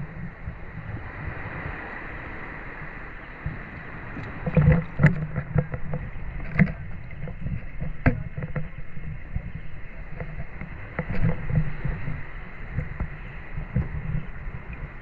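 Shallow water sloshing around a gill net being worked by hand, with irregular small splashes and knocks; the loudest come about four to five seconds in.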